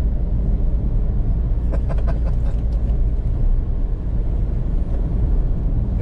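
Steady low rumble of a car driving on the road.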